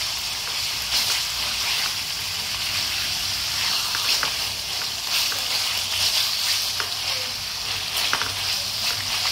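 Pork cutlets in a lemongrass and fish-sauce marinade sizzling steadily in hot oil in a steel pan, with scattered sharp clicks as chopsticks move the pieces.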